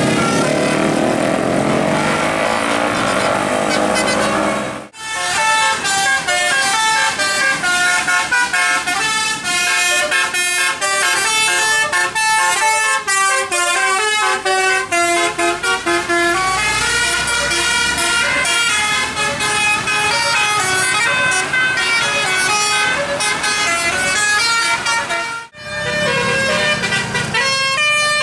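A bus's basuri telolet musical horn plays a fast melody of short stepped notes for about twenty seconds. Before it and after it, separated by abrupt cuts, come passing-bus engine and horn sounds that glide in pitch.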